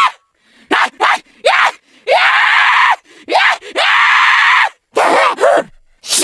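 A woman's voice doing zombie sound effects: a string of short, harsh screeches and groans, several sliding down in pitch, with brief silences between them.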